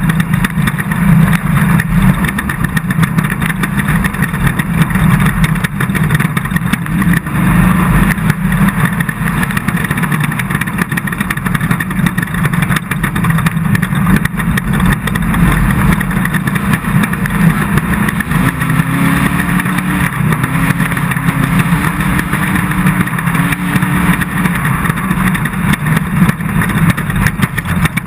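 Off-road race car's engine running hard and continuously, a loud steady rumble buried in rough driving noise.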